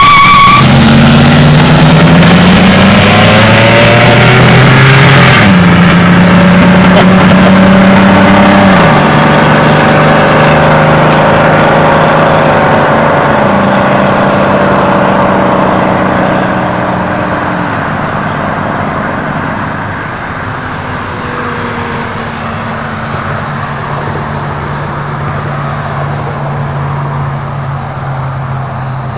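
Two Oldsmobiles, a 1969 Toronado with its 455 V8 and a 1994 Cutlass Supreme, launch together from a standing start and accelerate hard in a drag race. The engine note climbs and drops back several times as the cars upshift, then fades as they pull away into the distance.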